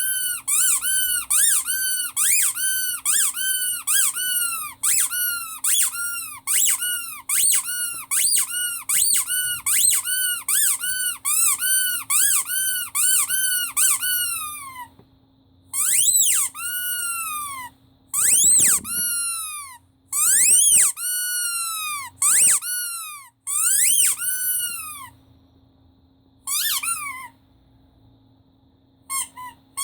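Rubber squeaky toy squeezed over and over, about two squeaks a second, each squeak rising then falling in pitch. About halfway through the squeezes turn to fewer, longer squeaks with pauses between, then quick squeaks start again near the end, with a faint steady hum underneath.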